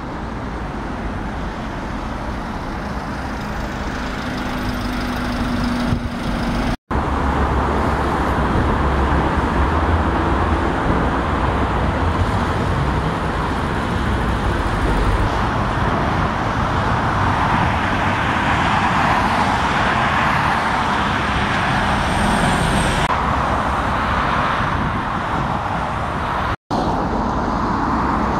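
Steady road traffic: cars and double-decker buses running past on busy roads. Two sudden brief dropouts break it where the footage cuts.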